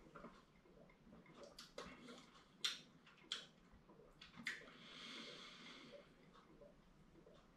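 Near silence broken by a few faint mouth clicks and smacks while a glass of mead is tasted, then a soft breathy draw of air lasting about a second and a half.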